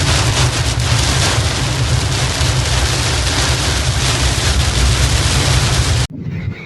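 Heavy tropical downpour with strong wind buffeting the microphone: a loud, dense hiss over a deep rumble. It cuts off suddenly about six seconds in.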